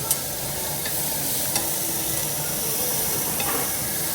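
Steady sizzle-like hiss with a few short, light clicks, like tableware clinking.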